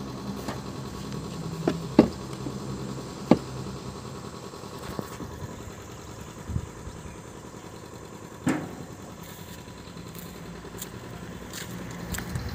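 Motorbike engine idling steadily, with a few sharp knocks: two close together about two and three seconds in, and one more after about eight and a half seconds.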